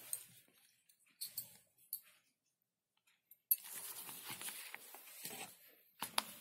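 Hands handling packaged beauty products: the scratchy rustle and light knocks of a cardboard box and plastic packaging being moved on a cloth-covered surface. There is a sharp knock about halfway through, then a couple of seconds of steady rustling, and two clicks near the end.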